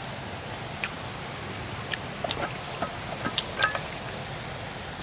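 Steady rush of a rocky mountain stream, with a scatter of small clicks and taps from picnic things being handled: cups, containers and a thermos.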